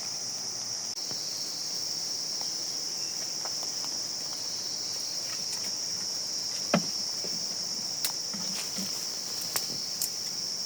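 Steady high-pitched drone of insects, with a few sharp knocks scattered through it, the loudest about seven seconds in.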